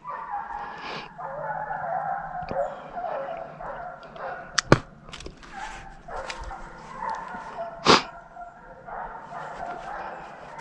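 Hunting hounds baying and yelping in drawn-out, wavering calls. Two sharp bangs, one about halfway through and one near eight seconds in, are the loudest sounds.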